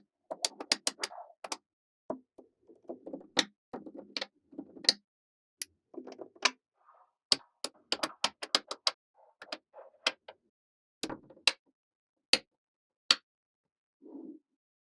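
Small magnetic balls clicking sharply together in quick irregular snaps as they are set into a model, with softer scraping between the clicks.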